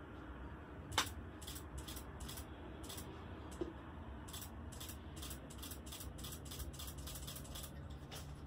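A camera shutter firing over and over in an irregular series of short clicks, coming faster in the second half, with a sharper click about a second in.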